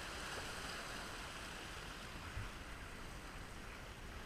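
Sea surf washing and foaming over the rock ledge below, a steady rushing wash with a soft low thump near the middle.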